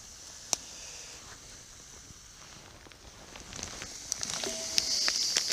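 Pork belly in a sweet soy-and-honey barbecue sauce sizzling in a frying pan over a small wood fire, with scattered crackles and clicks. The sizzle grows louder about four seconds in.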